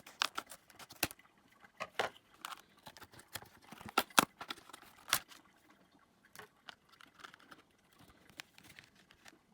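Scattered light clicks, ticks and short rustles of small objects being handled, irregular and sparse, thinning out over the second half.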